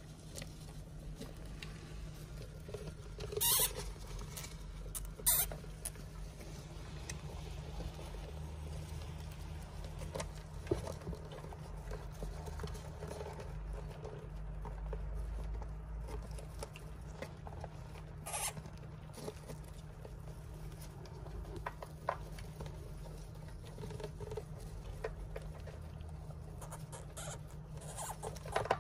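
Dwarf hamsters scurrying and rustling through wood-shaving bedding. Small ticks and three sharp clicks stand out over a steady low hum.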